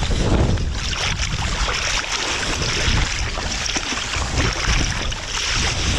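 Lake water sloshing and splashing around a person wading in the shallows, with wind buffeting the microphone.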